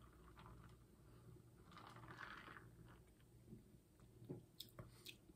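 Near silence, with faint mouth sounds of sipping and swallowing soda from a plastic cup about two seconds in, then a few faint clicks near the end.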